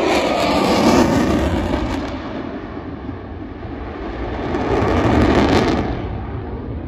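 Lockheed Martin F-22 Raptor's twin Pratt & Whitney F119 jet engines roaring on a low airshow pass. The roar swells about a second in, eases, surges again about five seconds in, and then falls away as the jet flies off.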